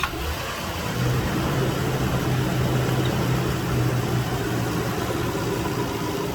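Toyota 4.7 L 2UZ-FE V8 running just after starting, on its first start after a timing belt replacement, and running smoothly. It holds a steady, slightly higher note for a few seconds after it catches, then eases down near the end.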